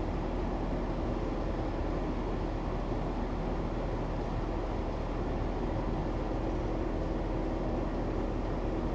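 Ventilation fan running steadily, sucking air in through a tube: an even rushing noise with a faint low hum.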